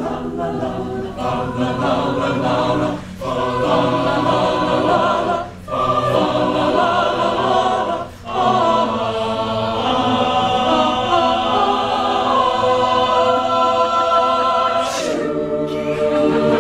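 An a cappella madrigal choir sings the closing phrases of a comic madrigal in close harmony, with short breaks between phrases and then a long held chord. A brief hissy burst comes near the end, followed by one last short chord.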